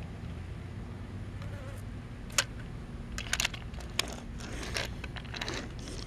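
A steady low buzzing hum, broken in the second half by a few sharp clicks and a short rustle.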